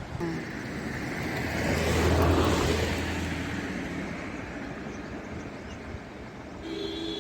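A motor vehicle passing close by: its engine and road noise grow louder to a peak about two seconds in, then fade away. A short honk-like tone sounds near the end.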